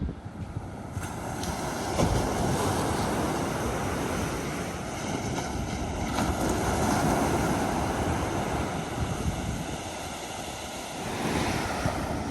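Ocean surf washing in waves that swell and fade, with wind buffeting the microphone.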